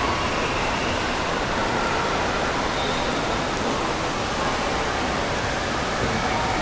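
Steady rush of falling and splashing water from indoor water park features, with faint distant voices under it.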